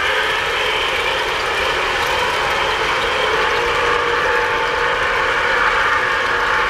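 Several 3-rail O-scale model trains running at once: the steady whir of their motors and the rolling rattle of metal wheels on the track, with no break or change.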